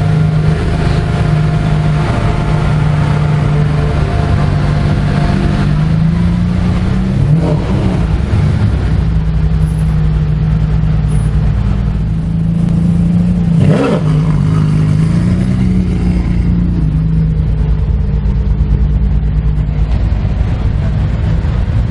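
Mansory Stallone Ferrari 599's V12 engine running at low revs as the car crawls along, a steady deep drone. It is blipped up and back down twice, about seven and fourteen seconds in.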